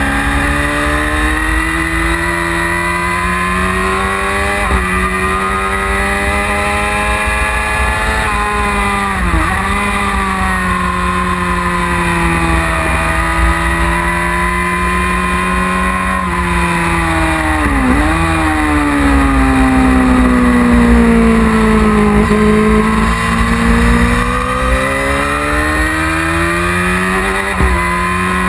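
1999 Yamaha R6's inline-four engine at racing speed on track, its pitch climbing under acceleration and falling off into corners, broken by several quick gear changes. Wind rumbles on the onboard camera's microphone underneath.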